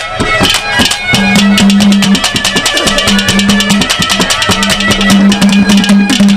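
Instrumental interlude of a Haryanvi ragni: fast, dense drumming with a held reedy drone note that comes in about a second in.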